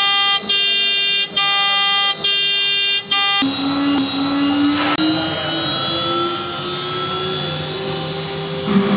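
CNC machine's motors whining: a steady many-toned whine that drops out briefly about once a second, then changes about three seconds in to several whines that slowly rise in pitch, with a stronger low hum coming in near the end.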